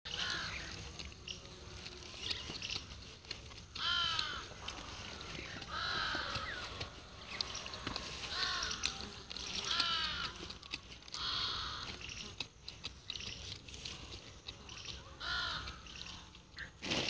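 Crows cawing, harsh calls repeated every second or two.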